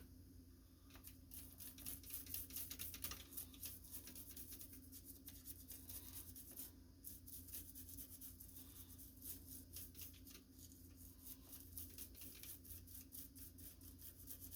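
Faint small clicks and light scraping from hands working on typewriter parts, many ticks at an irregular rhythm, over a steady low hum.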